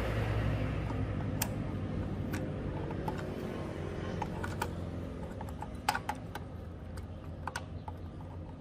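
Scattered light metallic clicks and ticks from a homemade bolt-and-tube piston pin puller and the piston as the piston pin is pressed out of a Honda Lead scooter's piston, with a low hum fading in the background.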